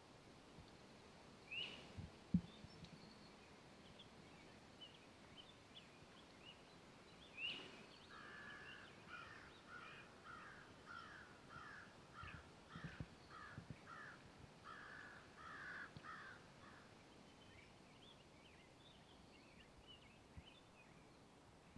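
A crow cawing, a run of about a dozen harsh calls from near the middle of the stretch, over faint forest quiet with small scattered bird chirps. Two sharper single calls come before the cawing, and a few soft low thumps are heard.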